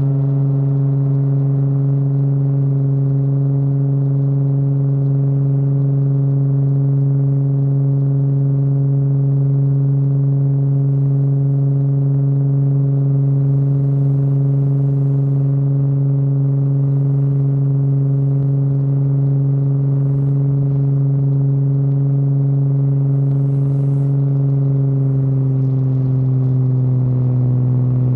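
Cessna 185 piston engine and propeller running at a steady cruise drone. The note drops slightly about 25 seconds in.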